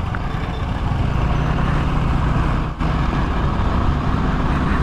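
Yamaha NMAX 155 scooter's single-cylinder engine running steadily under way, with road and wind noise; the sound dips briefly about three seconds in.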